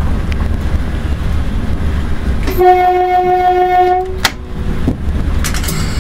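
Train horn sounding one steady blast of about a second and a half midway through, over the constant low rumble of the ED9M electric multiple unit running, heard from inside the cab. A sharp click comes just after the horn stops.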